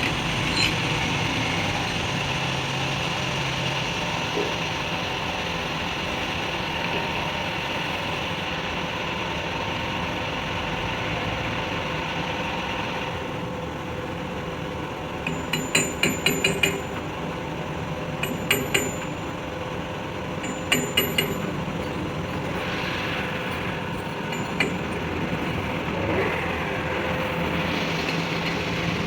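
A steady mechanical hum with short runs of sharp metal-on-metal taps: five or six quick taps a little past the middle, then a few more in pairs and one single tap.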